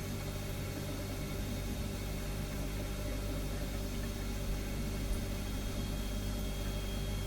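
Refrigerator humming steadily: a low, even compressor hum with a light hiss over it, and a faint high whine joining about six seconds in.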